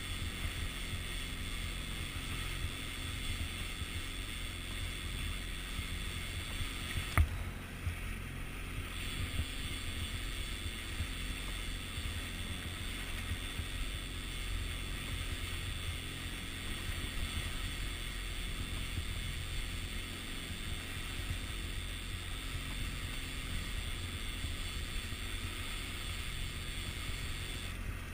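A boat's outboard motor running steadily at trolling speed, with water rushing along the hull. One sharp click about seven seconds in.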